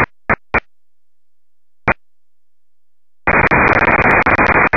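FM receiver audio from a software-defined radio tuned to the 2-metre amateur band: the squelch opens in short bursts of static, three quick ones at the start and another about two seconds in. A longer burst of steady hiss follows from about three seconds in. Each burst cuts on and off abruptly.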